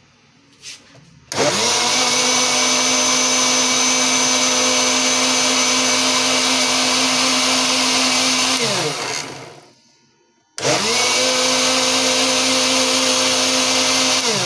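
Electric blender running, blending frozen strawberries with milk and sugar into a milkshake. It spins up about a second in, runs steadily, winds down with a falling pitch, then is switched on again near the end for a second burst.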